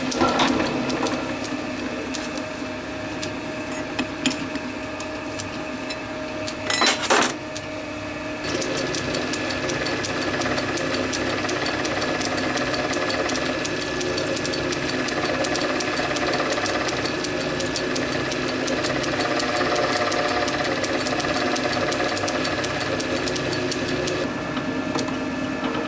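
Small metal lathe running steadily, its chuck spinning a sharp drill to cross-drill a brass part. There is a brief loud knock about seven seconds in.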